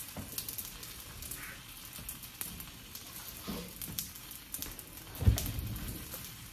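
A rice paper and egg wrap frying in oil in a nonstick pan, crackling with scattered small pops. A dull thump sounds about five seconds in.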